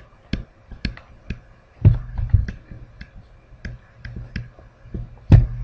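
Stylus pen tapping on a tablet screen while handwriting: a string of sharp, short clicks, about two to three a second, with two louder knocks about two seconds in and near the end.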